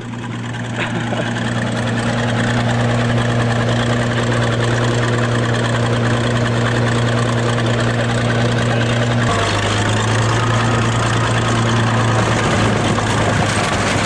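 Crawler bulldozer engine running steadily at a constant low pitch; about nine seconds in its pitch drops a little and stays there.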